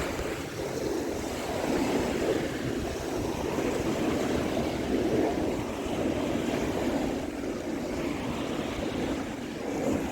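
Ocean surf washing steadily, mixed with wind buffeting the microphone.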